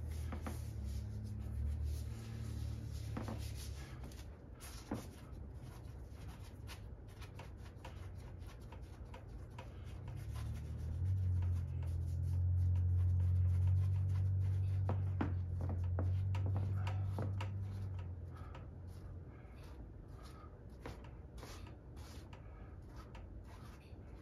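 A gloved hand rubbing and smearing acrylic paint across a stretched canvas: repeated short scraping strokes over a low rumble that grows louder in the middle.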